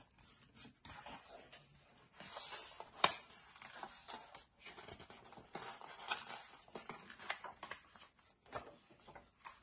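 Pages of a paperback picture book being opened and turned by hand: soft, faint paper rustling and sliding in scattered bursts, with a sharp tap about three seconds in.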